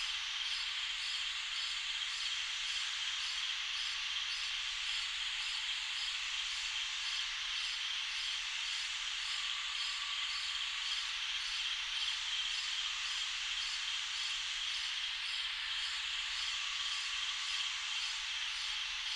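Summer night ambience: a steady chorus of night insects, a dense high-pitched chirring, with a faint even pulse in its highest notes.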